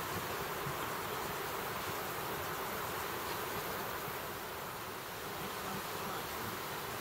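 Steady, even buzzing of insects in a summer riverside meadow, with no separate calls or knocks standing out.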